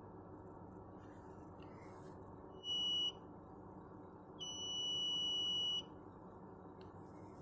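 Buzzer of a homemade infrared proximity-sensor security alarm sounding twice, set off by the sensor: a short steady high beep, then a longer one of about a second and a half.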